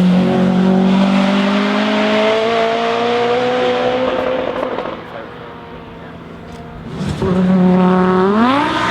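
Two racing cars passing one after the other under hard acceleration. The first holds an engine note that rises slowly in pitch, then fades away over about five seconds. The second arrives about seven seconds in, its engine revving sharply up and then dropping back near the end.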